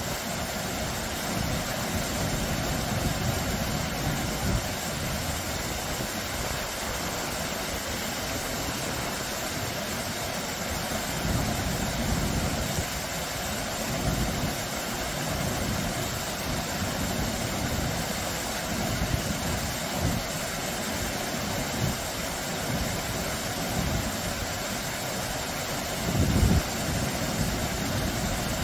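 Small, low waterfall pouring over rock ledges into a shallow stream: a steady rush and splash of falling water. Low rumbles come and go beneath it, strongest about 26 seconds in.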